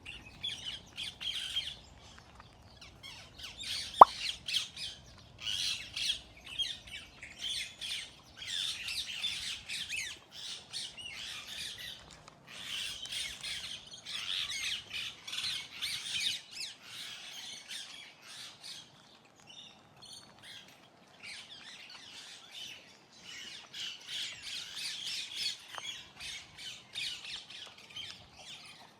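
Many caged aviary birds calling at once, a dense chatter of short squawks and chirps that comes in waves and thins out briefly a couple of times. A single sharp click sounds about four seconds in.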